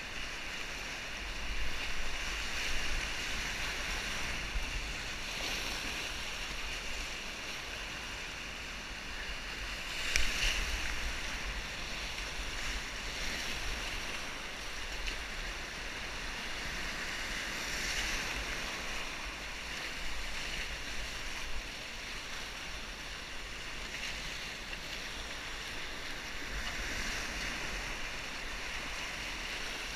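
Whitewater rapids at high flow rushing and splashing around a kayak: a steady hiss of churning water, with louder splashes about ten and eighteen seconds in.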